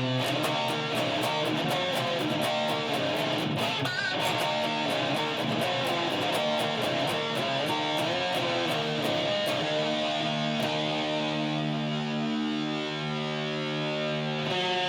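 Electric guitar playing a metal/rock riff: a quick run of picked notes, then from about ten seconds in, held notes ringing out.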